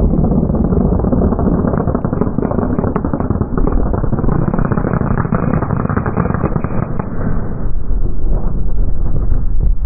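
Limestone quarry blast: a long run of delayed charges going off in sequence, heard as a dense crackling rattle of detonations over a heavy low rumble. About eight seconds in the crackle dies away, leaving the low rumble.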